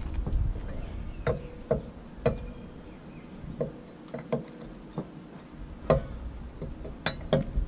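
Wheel brace on steel caravan wheel bolts during their final tightening: irregularly spaced sharp metallic clinks and knocks, several ringing briefly.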